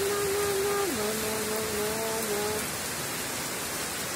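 Heavy rain pouring steadily, an even dense hiss of a downpour on a road and trees. A woman hums a wordless tune over it for the first two and a half seconds.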